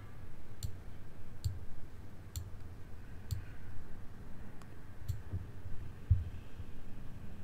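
Computer mouse clicking, single clicks about once a second, several with a soft low thud under them.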